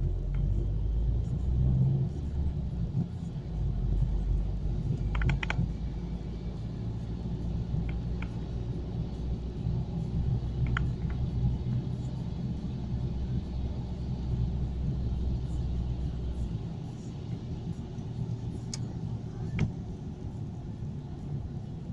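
Car engine and road rumble heard from inside a moving car, a steady low drone. The deepest part of the rumble falls away about three-quarters of the way through, and a few faint clicks sound now and then.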